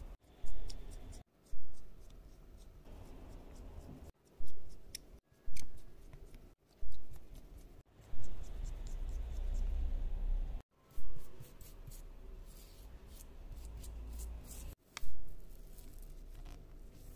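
Precision screwdriver driving the tiny screws of a Xiaomi Redmi Note 10's midframe: close-up scratchy clicks and scrapes of the bit in the screw heads, coming as a string of sharp sounds that fade quickly, with bumps from hands handling the phone.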